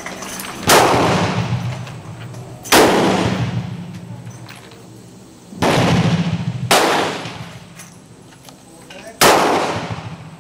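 Ruger LCR .38 Special revolver fired five times at an uneven pace, each shot a sharp crack followed by a long fading echo.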